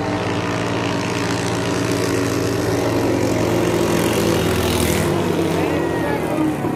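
Racing katinting longtail boat engine running at high revs, loudest as the boat speeds past about four seconds in, with a brief hiss near the loudest point.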